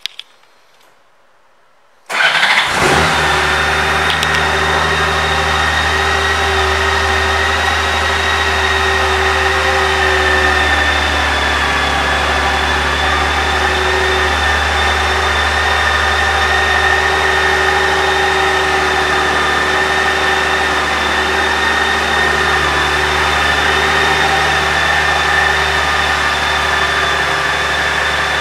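2002 Honda Gold Wing's 1.8-litre flat-six engine starting about two seconds in, then idling steadily.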